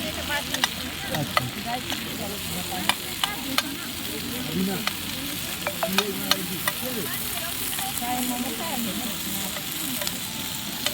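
Food sizzling in a hot pan with a steady hiss, and a metal utensil clicking sharply against the pan at irregular moments as the food is stirred.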